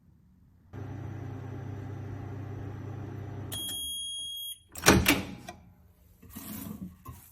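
Microwave oven running with a steady hum. A high electronic beep sounds for about a second as the hum stops. Then a loud clunk, like the door latch being popped open, followed by a brief rustle.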